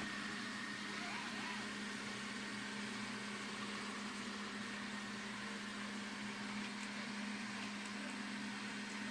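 Alfawise V8S robot vacuum cleaner running, its brushless suction motor and brushes giving a steady hum with an even hiss.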